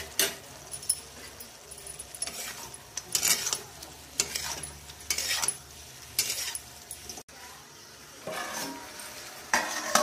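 Metal spatula scraping and knocking against a black kadai as mutton bhujiya is stirred and tossed, in short strokes about once a second, with a louder clatter near the end.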